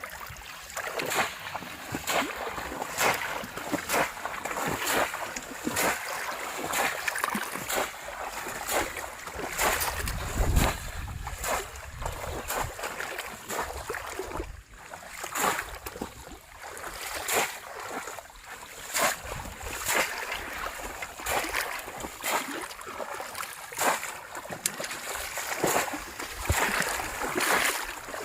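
Shallow water splashing and sloshing over and over, a splash about every second, as a bamboo polo basket trap is worked in the water.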